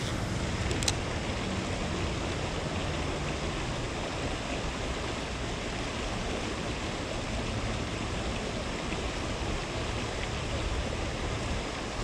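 Steady rush of a small river's current flowing over a shallow riffle. A single short click comes about a second in.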